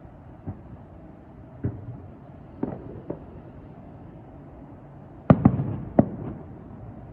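Fireworks shells bursting: four scattered bangs, then a louder cluster of three about five seconds in, each with a short echoing tail. Under them runs the steady low hum of the cruise boat.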